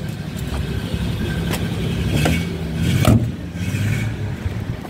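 Rover 3500 S's 3.5-litre V8 idling steadily, with a few knocks and taps over it, the loudest about three seconds in.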